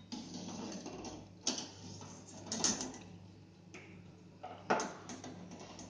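A handful of light metallic clicks and taps from a steel wire frying spoon knocking against a steel kadai and plate as fried murukku are lifted out of the oil. Under them are a faint frying sizzle and a steady low hum.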